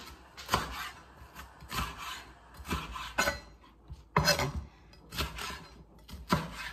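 Chef's knife slicing red bell pepper into strips on a cutting board: about a dozen sharp, unevenly spaced chops, several in quick pairs, each blade stroke ending in a knock on the board.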